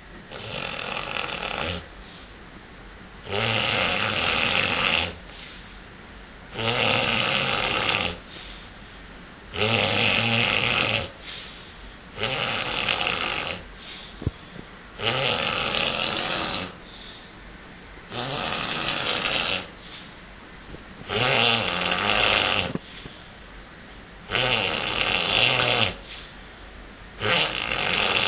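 A man snoring in a steady rhythm, about ten long snores, each lasting a second and a half to two seconds and coming about every three seconds.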